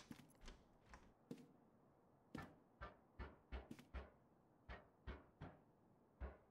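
A door lock and handle being worked by hand: a faint run of irregular sharp clicks and knocks, bunched closely together from about two seconds in.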